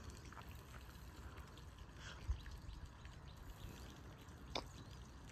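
Faint outdoor background with a low rumble of wind on the microphone, a dull thump about two seconds in, and a single sharp click a little after four and a half seconds.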